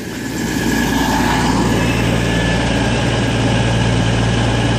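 CrossCountry Class 221 Super Voyager diesel-electric train arriving slowly past the platform, its underfloor diesel engines running with a steady low hum. The sound builds over the first second, then holds steady.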